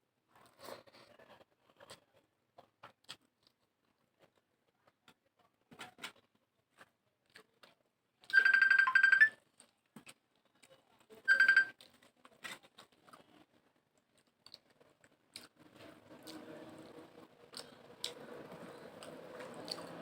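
Close-up eating sounds: soft chewing and small crunches and clicks. About eight seconds in, a loud electronic tone sounds for about a second, then a shorter one about three seconds later. A steady low hum comes up near the end.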